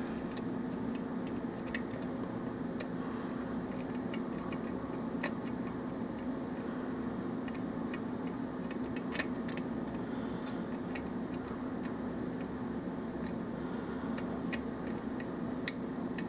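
Light, irregular metallic clicks and taps of a lock pick working the pin stacks of a Russwin challenge lock cylinder under tension, with one sharper click near the end. A steady low hum runs underneath.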